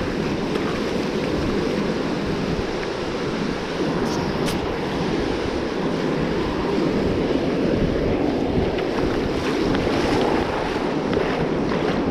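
Ocean surf breaking and washing up a sandy beach, a steady rushing mixed with wind buffeting the microphone.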